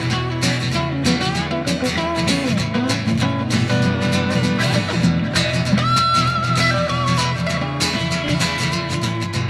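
Rock band playing an instrumental break: a guitar lead holds and slides long notes over strummed guitar, bass and drums.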